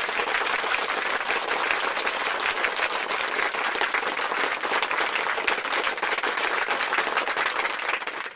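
Many people applauding, a dense, steady clapping that holds at an even level throughout.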